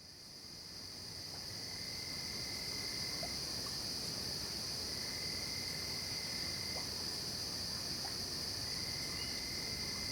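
Night-time insect chorus of crickets: a steady, high-pitched drone, with a lower trill of about two seconds that comes back three times, about three seconds apart. The sound fades in over the first couple of seconds.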